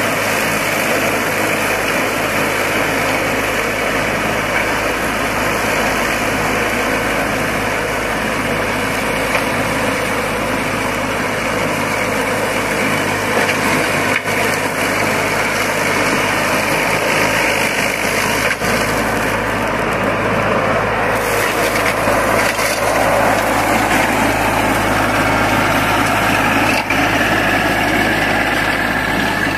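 Baroness LM320AF four-wheel-drive ride-on mower's engine running steadily while its front cutter deck mows through tall grass.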